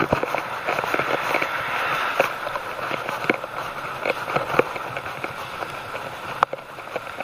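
Riding noise from a bicycle in light rain: a steady hiss of tyres on the wet road and rushing air, with scattered small ticks.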